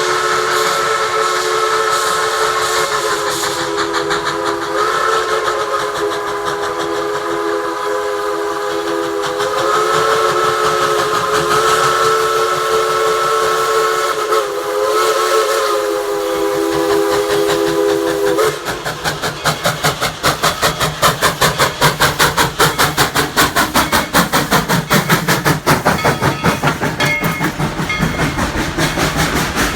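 Baldwin steam locomotive #190's steam whistle blowing one long chord-like blast, with a few brief wavers, for about eighteen seconds before cutting off. The locomotive then passes close with a fast, even beat of exhaust and wheel clatter, about three or four beats a second.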